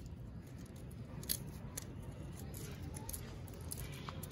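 A small hand-held stone striking a roasted cashew shell to crack it open, with one sharp knock about a second in, a fainter one just after, and a few light cracks of shell.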